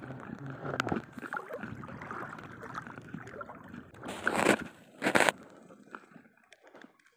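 Shallow sea water sloshing and gurgling around a wading angler's legs, with two louder splashes about four and five seconds in.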